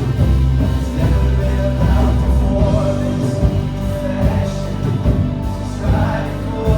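Live church worship band playing a slow song with sustained bass and held chords, and a voice singing over it.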